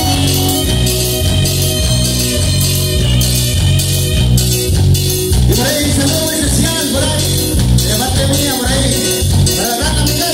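A live Mexican regional band playing loud through PA speakers, with a steady pulsing bass beat; singing comes in about halfway through.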